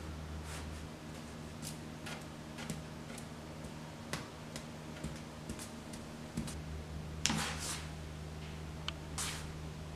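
Scattered light clicks and taps as fingers flick and handle a wooden fidget spinner, with a brief louder rustle about seven seconds in and another near the end, over a steady low hum.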